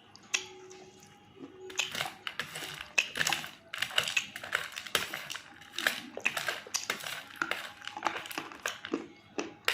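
Close-miked crunching as a person bites and chews a hard, chalky material; quiet for the first second and a half, then rapid, dense crunches.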